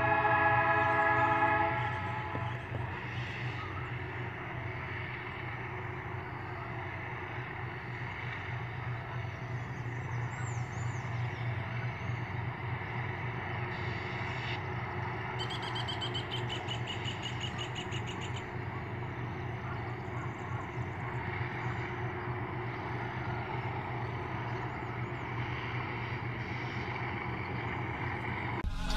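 Horn of a pair of GE U20C diesel locomotives sounding a chord that cuts off about two seconds in, followed by the steady low rumble of the locomotives running out of sight.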